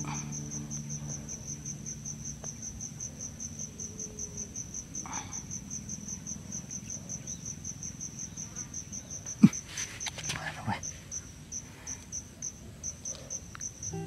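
An insect chirring in a fast, even, high-pitched pulse, about two-thirds of the way through, a single sharp click stands out as the loudest sound, followed by soft handling rustles.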